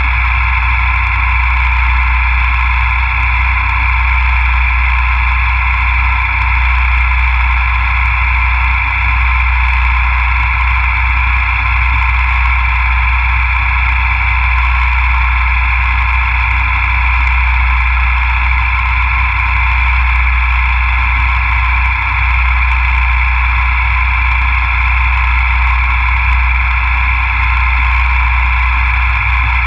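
CNC milling machine running steadily while machining a fixture plate: a constant whine over a low hum, with no change in pitch or level.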